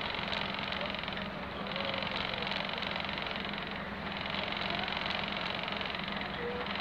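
Class 121 diesel railcar's engine idling steadily while it stands still, heard from inside the passenger saloon.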